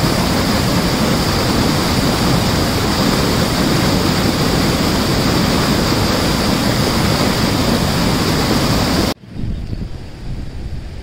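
Loud, steady rushing of heavy flowing water. It cuts off abruptly about nine seconds in, and a much quieter low rumble follows.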